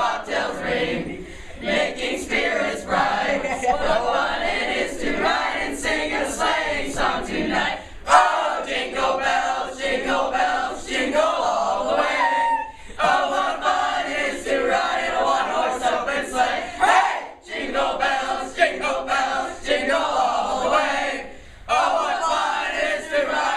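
A group of students singing together loudly in a ragged, shouty chorus, breaking off briefly a few times between lines.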